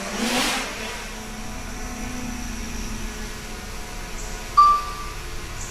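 Small camera drone's propellers whirring, with a rising whoosh near the start as it speeds up, then a steady faint whine. A short, sharp beep a little past halfway is the loudest sound.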